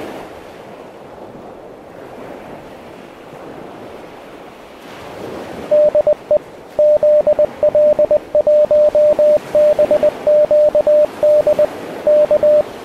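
Surf breaking on a beach, joined about six seconds in by a Morse code (CW) tone: a single steady beep keyed on and off in dots and dashes, sending the ham radio call sign 'de ZL1BQD'.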